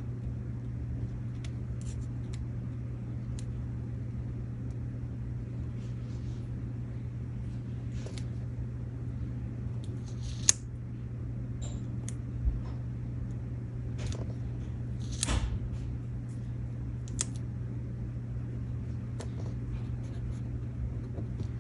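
Scattered soft rustles and light clicks of paper leaf stickers being handled and pressed onto a journal card, over a steady low hum.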